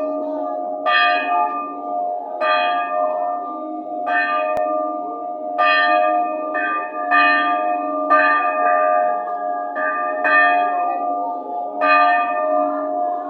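Church bell being rung, struck irregularly about once every one to one and a half seconds, each strike ringing on under the next.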